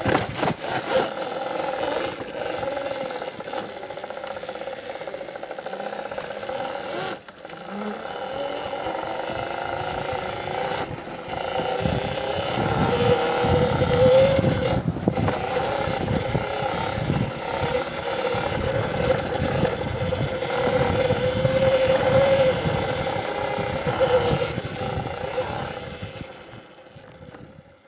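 Electric motor of a CZEM Drill One electric enduro bike whining as it is ridden, the pitch rising with speed twice, with clattering and low thumps from the bike over rough ground. The sound fades out near the end.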